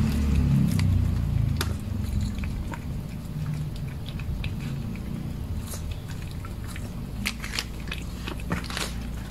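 A cat eating from a plastic dish close up, with irregular crunches and clicks as it chews its food.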